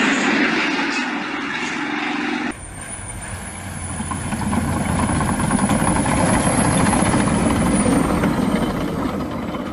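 A loud rough noise cuts off about two and a half seconds in. Then a Caterpillar D6T bulldozer's diesel engine runs under load as its tracks work through snow, with a thin high whine over it that fades near the end.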